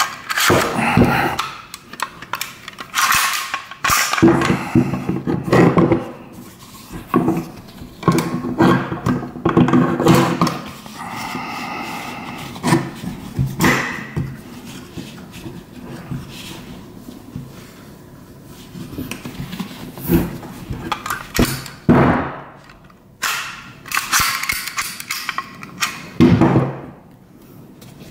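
Handling of a Sten Mk2 submachine gun: the bolt is worked inside the steel receiver tube to line it up with the cocking-handle notch, giving irregular metallic clacks, knocks and scrapes with rubbing against the cloth. A longer scrape comes near the middle.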